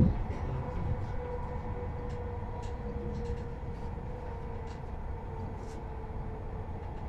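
Passenger train running along the line, a steady rumble of wheels on rails heard from inside a coach, with a faint whine that drifts slowly lower in pitch. A low thump sounds right at the start.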